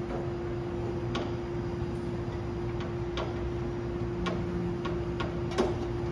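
Irregular sharp clicks and taps, about seven of them with the loudest near the end, over a steady hum.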